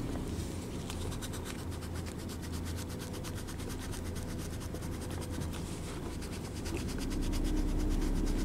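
A coin scratching off the date boxes on a paper scratch-card parking coupon, in quick repeated rubbing strokes, over a low steady hum that grows a little louder near the end.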